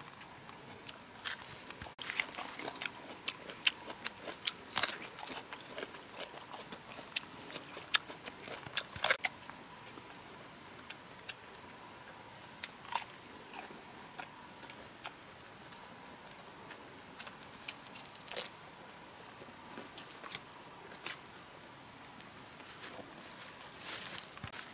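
Leaves and branches rustling and twigs crackling as someone moves through undergrowth and pulls fruit from a tree, in irregular clicks and snaps.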